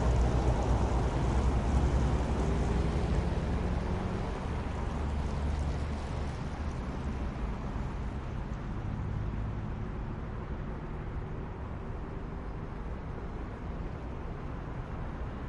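City traffic hum: a steady low rumble of vehicles, loudest at the start as a nearby vehicle's engine passes, then slowly fading to a more distant, even drone.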